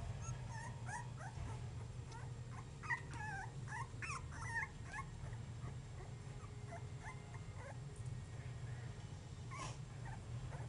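Basenji puppies about three and a half weeks old whimpering and squeaking: many short, high, wavering calls, thickest in the first half, with a few more later, over a steady low hum.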